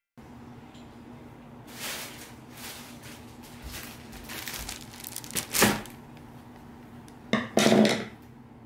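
Thin plastic carrier bag rustling and crinkling in a run of short bursts as it is handled and set down on a table. The loudest crinkles come a little past halfway and again near the end.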